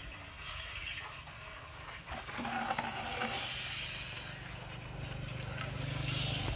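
A mother dog and two puppies eating from a metal bowl: small scattered clicks and wet chewing and lapping noises. A low steady hum grows louder over the last couple of seconds.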